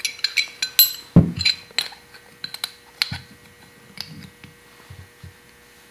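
Light metallic clinks and ticks of an aluminium AN wrench and anodised aluminium hose-end fittings being handled as a test plug is tightened onto a braided AN hose. The clinks come thickest in the first two seconds and thin out after, with a soft thump about a second in.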